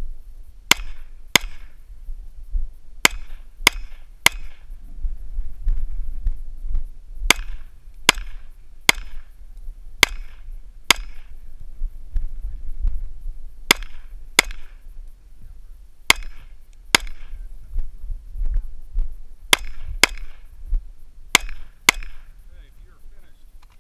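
Smith & Wesson M&P pistol fired about eighteen times, mostly in quick pairs with short pauses between, each shot a sharp crack with a brief echo. A low rumble runs beneath the shots.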